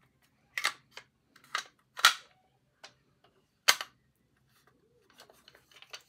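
Sharp clicks and snaps from a red fire alarm pull station being handled and opened: four loud clicks spread over about three seconds, with a fainter one between them.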